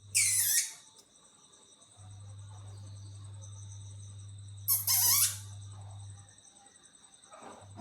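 A cat mewing twice in short, high-pitched squeaky calls, one at the start and one about five seconds in, over crickets chirring steadily.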